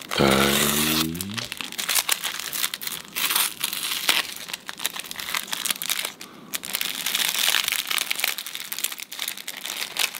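Thin plastic film wrapper of an onigiri crinkling and tearing as it is pulled open by its tear strip and peeled off the rice ball, with irregular crackles throughout.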